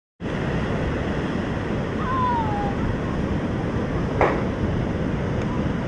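Ocean surf rushing steadily, with wind noise on the microphone, cutting in abruptly from silence at the start. About two seconds in there is a short falling squeal, and about four seconds in a brief sharp sound, the loudest moment.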